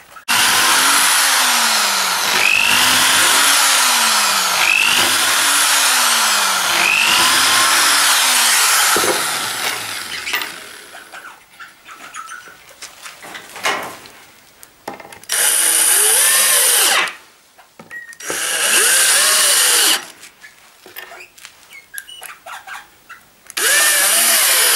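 Electric drill boring pilot holes into pine boards, its motor pitch dipping under load and recovering about every two seconds for about ten seconds. After a stretch of small knocks, a cordless drill-driver drives wood screws into the boards in three short runs.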